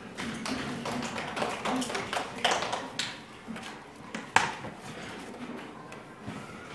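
A classroom of children applauding, a scattered round of hand claps that is thickest over the first three seconds and then thins out, with one louder sharp clap about four seconds in.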